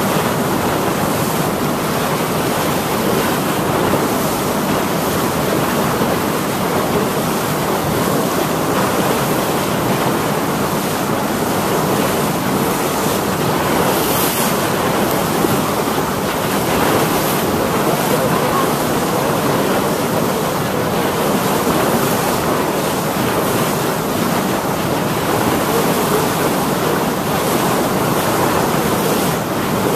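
Steady wind buffeting the microphone, with water rushing and splashing around a moving boat on choppy estuary water.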